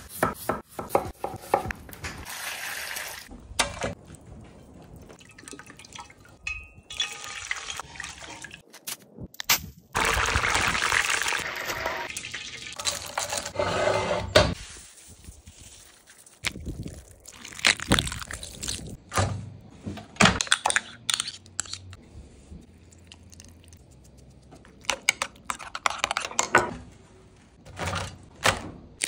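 Food-preparation handling sounds: scattered knocks and clicks as food is handled on a board and grill, with a few seconds of steady liquid-like hissing about ten seconds in.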